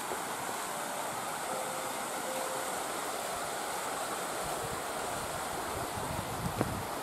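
Steady rush of water running along a stone-lined garden channel. From about halfway in, wind gusts rumble on the microphone, and there is a brief knock near the end.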